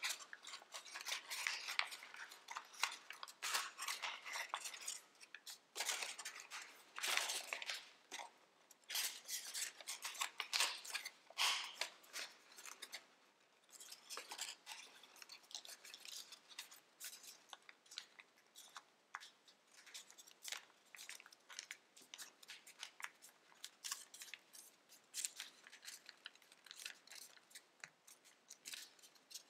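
Tissue-foil origami paper being folded and creased by hand. It crinkles and rustles in an irregular run of crackles with short pauses.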